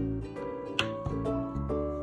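Background music: plucked strings such as ukulele over a bass line, with a sharp click about three-quarters of a second in.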